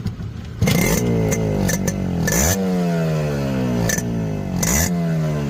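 Yamaha RX 100's two-stroke single-cylinder engine, fitted with a muffler, being revved repeatedly: the pitch jumps up sharply and falls back slowly several times, with sharper blips about two seconds and four and a half seconds in.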